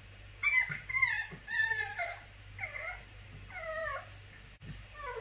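French bulldog puppy whining and yelping in a series of about five or six short, high cries, each bending in pitch, calling to be let out of its crate.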